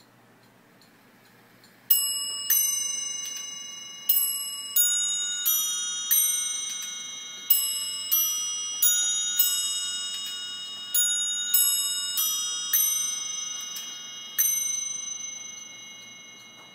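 Antique English bracket clock with eight bells and a gong chiming the hour on its bells: about fifteen ringing notes at different pitches, in groups of about four with short pauses between, each note left to fade.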